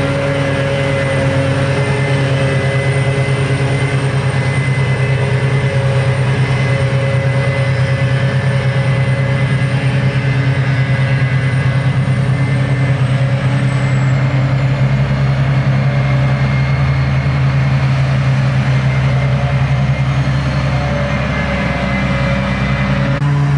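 New Holland FR650 self-propelled forage harvester chopping grass: a loud, steady heavy engine drone with a thin high whine above it, with the tractor and silage trailer running alongside.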